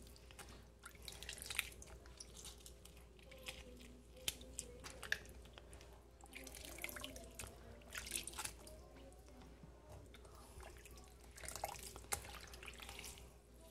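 Faint, scattered drips and small splashes of water and lime juice as lime halves are squeezed over a glass bowl of chicken pieces soaking in water and moved around in it by hand.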